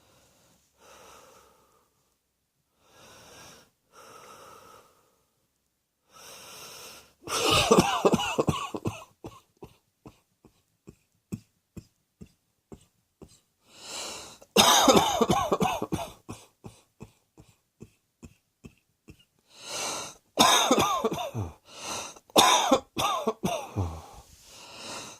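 A person coughing in repeated fits. A few quiet breaths come first, then three bouts of rapid, hacking coughs, each started by a sharp drawn-in breath and trailing off into strings of short coughs.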